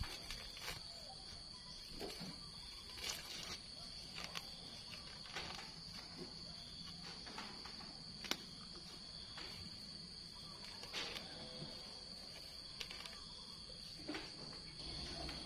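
Steady high insect chirring, with irregular short snaps and rustles of grass and weeds being pulled up by hand from soil.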